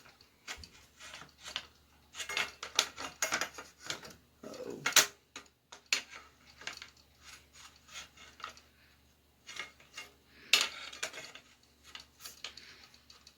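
Irregular metal clicks and clacks of a new Stoeger 12-gauge pump-action shotgun being handled and its parts fitted together, with the loudest clacks about five seconds in and again about ten seconds in.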